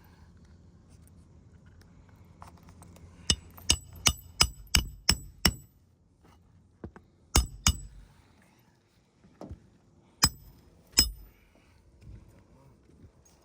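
Hammer striking a metal pry tool worked under a shingle, sharp ringing metallic blows: a quick run of about seven strikes, then two pairs of strikes later.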